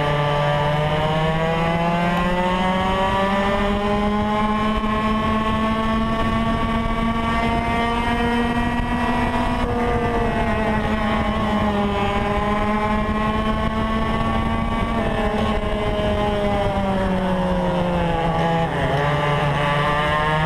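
Onboard sound of a Yamaha KT100 two-stroke kart engine at racing speed, its pitch climbing over the first few seconds and held high, easing off briefly twice in the middle and more deeply near the end before climbing again as the kart goes through the corners.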